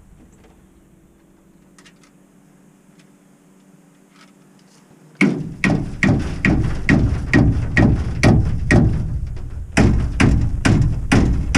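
Loud metal-on-metal hammer strikes, about two a second, beginning suddenly about five seconds in after a faint steady hum; the blows have a short ringing edge.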